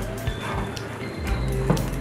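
Background music with steady held bass notes.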